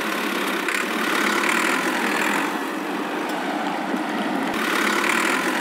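Steady, continuous engine running sound, even in level with no revving, as the toy tractor drives past.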